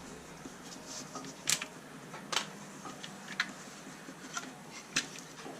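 Small plastic and metal parts of an RC car chassis clicking and tapping as they are handled during a strip-down, a few sharp clicks spread irregularly.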